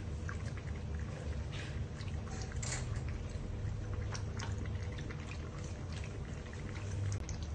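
A puppy lapping and slurping from a plastic bowl: quick, irregular wet clicks over a steady low hum.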